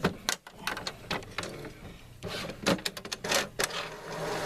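Printer running as it prints a page: a series of irregular clicks and short whirring passes.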